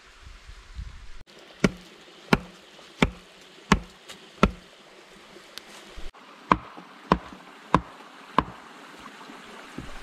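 Sharp wooden knocks of upright split logs being hammered into place: five evenly spaced blows, then after a short break four more, these with a slight ring.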